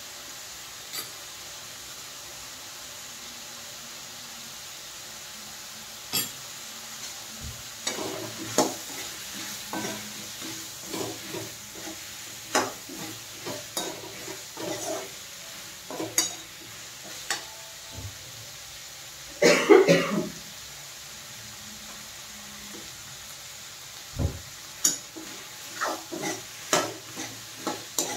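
Steel spoon stirring bottle gourd cubes in a steel kadhai, scraping and clinking against the pan in uneven strokes over a faint steady sizzle of the vegetables frying in oil. The stirring starts about six seconds in, with a louder flurry about two-thirds of the way through and a short pause before the last strokes.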